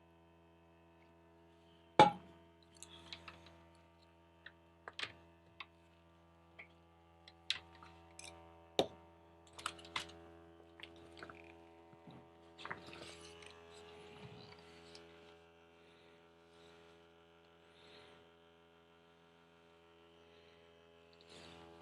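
Jet Gun battery-powered coil cleaner's pump running with a steady hum while nothing comes out of its hose. Scattered sharp clicks and knocks of the unit being handled sound over it, the loudest a single click about two seconds in.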